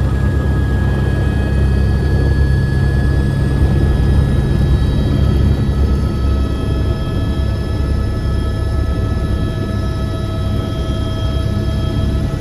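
Steady, loud drone of an aircraft's engines: a deep rumble with a few thin, steady whining tones above it.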